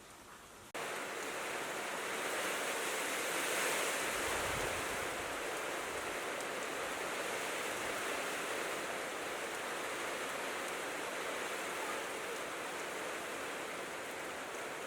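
Heavy rain falling in a steady, dense hiss, cutting in abruptly about a second in.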